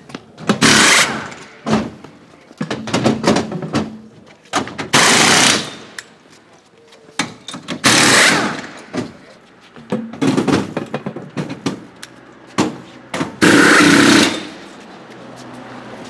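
Pneumatic wheel guns rattling in a series of short bursts, undoing and tightening the centre-lock wheel nuts during a race car's pit-stop tyre change.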